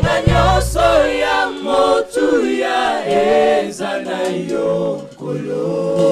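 Gospel choir singing a slow worship song in harmony into microphones. Low sustained accompaniment underneath fades out about a second in, leaving the voices alone.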